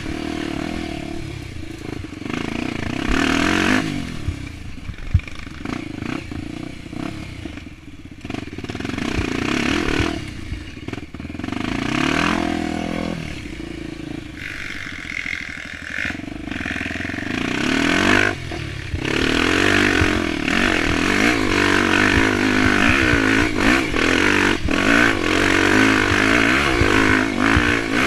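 Honda XR 250 Tornado trail bike's single-cylinder engine, bored out to 280cc and fitted with an aftermarket exhaust, revving up and down repeatedly under riding. It eases off twice in the first half and runs harder and more steadily through the last third.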